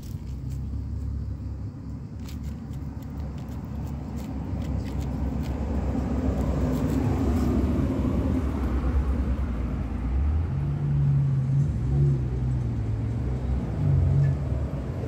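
A low engine-like rumble, growing louder about halfway through, over faint clicks of a cat chewing and licking wet food.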